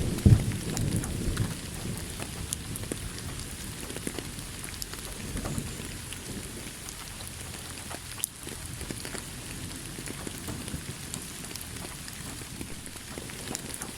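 Steady rain pattering, with scattered sharp drop ticks. A low roll of thunder dies away in the first couple of seconds, and a fainter rumble follows a few seconds later.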